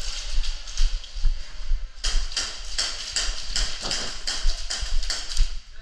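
Irregular run of sharp clicks and knocks, several a second, with dull low thumps against the microphone.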